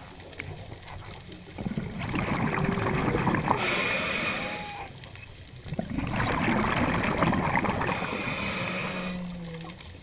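Scuba regulator exhaust bubbles rushing in two long bursts, starting about two seconds in and again about six seconds in. Under them is faint humpback whale song: short tones sliding up and down, and a low held tone near the end.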